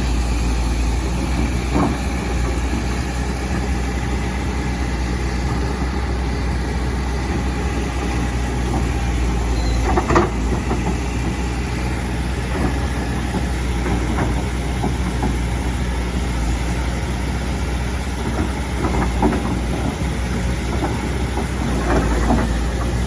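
Excavator's diesel engine running steadily, with a few short knocks on top, the loudest about ten seconds in.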